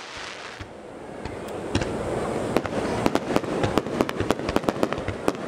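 Fireworks display: aerial shells bursting in a rapid salvo, a dense run of sharp bangs and cracks that starts about a second and a half in and keeps on.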